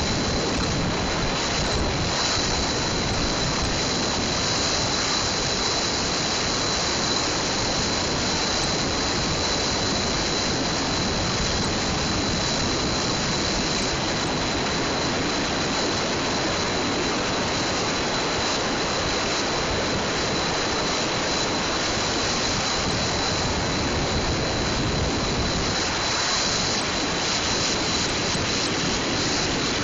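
Steady road noise of a car crossing the Mackinac Bridge: an even hiss of tyres and wind, with a faint high whine held throughout.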